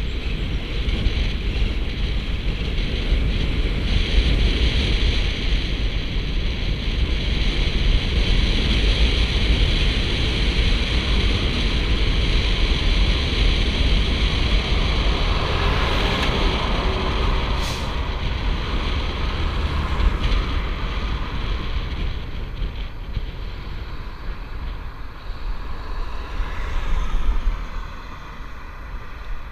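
Wind buffeting the microphone of a camera on a moving bicycle, a steady heavy rumble with road and tyre noise. Near the end a car goes by and the noise swells briefly before easing off.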